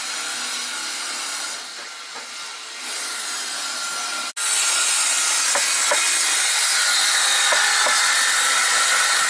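Wood being sawn during carpentry work, a steady rasping noise. The sound cuts out briefly about four seconds in, then returns louder.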